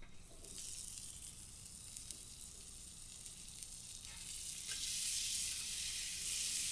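Beef burger patty sizzling in bacon fat on a Weber Q griddle plate, a steady hiss that grows louder about two-thirds of the way through.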